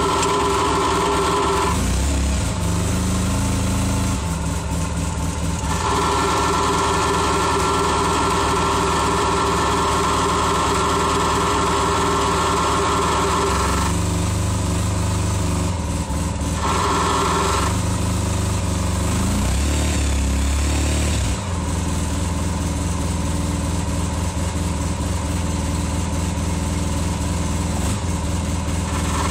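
Polaris RZR side-by-side engine running, with a knock that the owner is recording. The engine note shifts and steps in pitch for a few seconds, twice.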